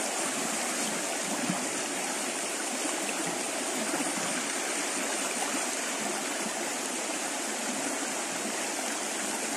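Muddy, rain-fed stream rushing steadily over and between rocks and small cascades.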